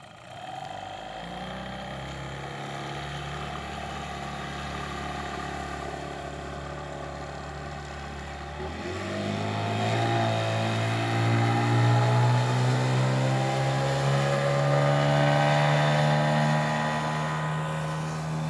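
Tohatsu 25–30 hp outboard motor running at low speed. About nine seconds in, the throttle opens and the engine note rises over a few seconds, then holds steady, louder and higher, as the boat gets under way.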